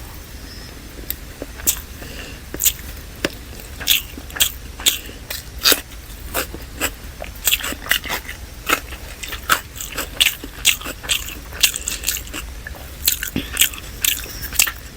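Close-miked chewing of chicken biryani and salad: wet mouth clicks and crunchy bites, several a second at an irregular pace.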